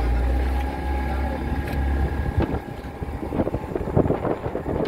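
A small boat's motor running steadily, with wind buffeting the microphone: a heavy low rumble for about the first two seconds, then uneven gusts.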